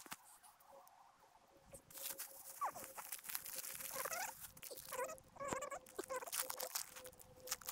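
Plastic bag crinkling and rustling in the hands as it is opened and handled, with a few short, wavering chirps mixed in.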